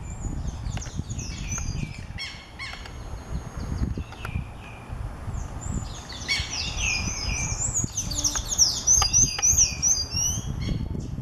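Several small birds chirping and twittering in quick falling notes, busiest and loudest from about six seconds in, over a low steady rumble.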